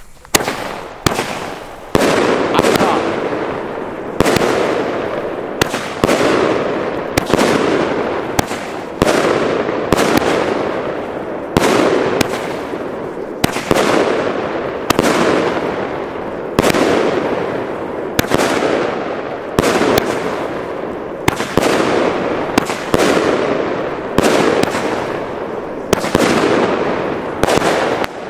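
SR Pyro Halloween firework battery (cake) firing shot after shot, roughly one a second, each a sharp bang that dies away over about a second.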